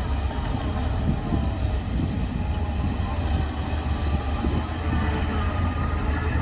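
Heavy diesel earthmoving machinery working under load: a deep, steady engine drone with irregular metallic clanks and squeals, like a crawler bulldozer's tracks.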